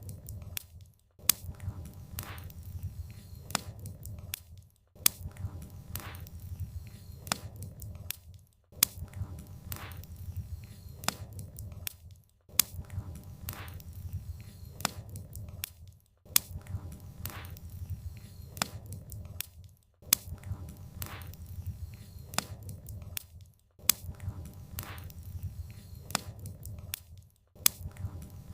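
Wood fire burning: sharp crackles and pops of burning firewood over a low, steady rumble of the flames. The sound breaks off briefly about every four seconds, as in a short repeating loop.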